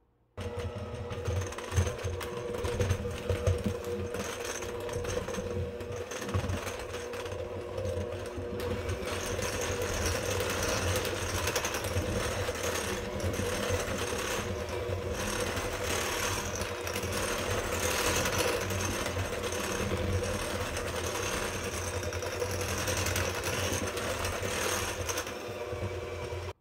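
Electric hand mixer running steadily, its beaters whipping icing sugar into cream cheese icing in a glass bowl, with a few sharper knocks in the first few seconds. It starts just after the beginning and stops abruptly at the end.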